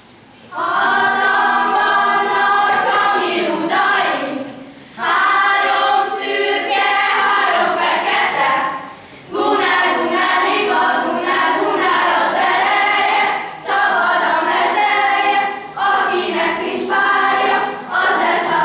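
A choir singing: held, pitched phrases a few seconds long, separated by brief breaks.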